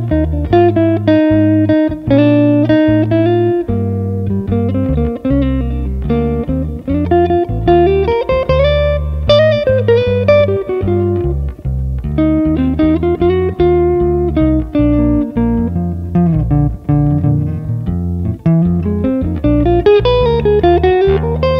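Instrumental jazz ballad: an archtop guitar playing a melodic solo line with slides, over electric bass guitar holding sustained low notes. No singing.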